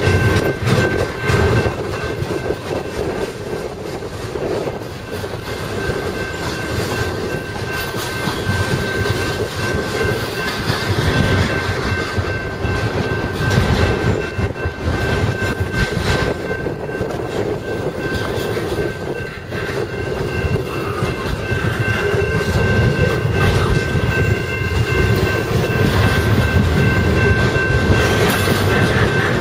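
Double-stack intermodal container cars of a freight train rolling past, wheels rumbling and clicking over the rail joints, with a steady high-pitched tone over the clatter.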